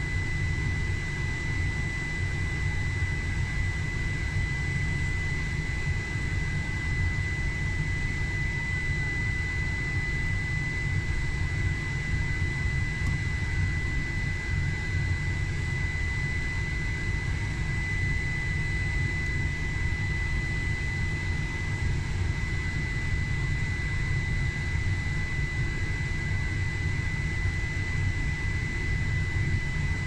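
Steady drone of a powered-up Gulfstream G450 heard in its cockpit: a low rumble under a constant high-pitched whine.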